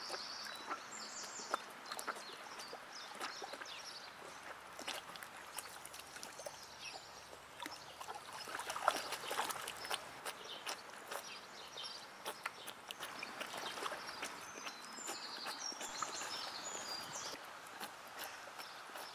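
Icelandic horse slurping and sucking duckweed off a pond's surface, a run of irregular small wet clicks and splashes from its muzzle in the water. Birds chirp faintly at the start and again near the end.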